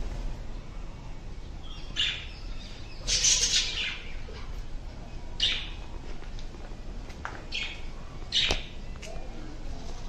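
Budgerigars calling in an aviary: short, harsh calls every second or two, the loudest a burst of chatter lasting about a second, about three seconds in. A sharp click sounds among the calls near the end.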